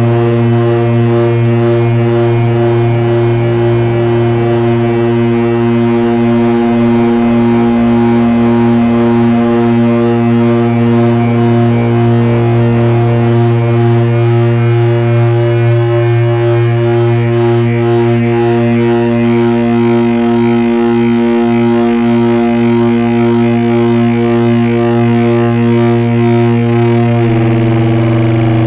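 Loud, steady electronic drone noise from a Hewlett-Packard 200C audio oscillator and frequency analyzer units: several held tones stacked over a buzzing low hum. Near the end the chord shifts as one tone drops out and another slides slightly lower.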